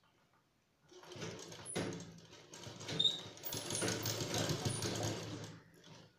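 Black domestic sewing machine stitching a seam through fabric, running from about a second in and stopping shortly before the end.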